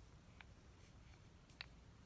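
Near silence: room tone with a low hum and two faint small clicks, one about half a second in and one near the end.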